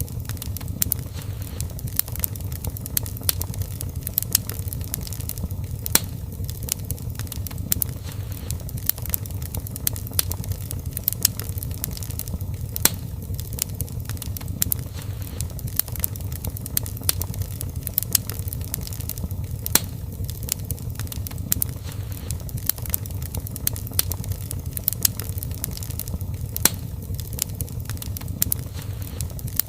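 Wood fire in a fireplace crackling steadily, with irregular sharp pops and snaps over a low rumble of flame.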